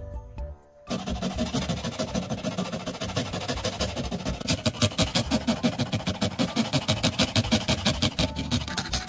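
A short run of music for about the first second. Then a small steel blade scrapes quickly back and forth across a gritty leather strip glued to a wooden block: a rasping rub of many strokes a second that gets louder about halfway through.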